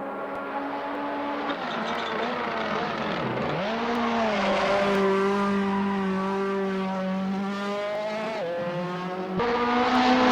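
Racing car engine at high revs on a race circuit: the revs drop and climb back, hold steady for several seconds, then drop again, with a louder, abrupt change near the end.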